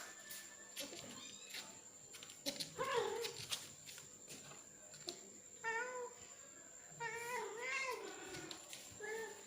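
Cat meowing: a series of drawn-out calls with a wavering, bending pitch, the first about two and a half seconds in and the longest near the end, the kind of calling heard when a male cat is after a female.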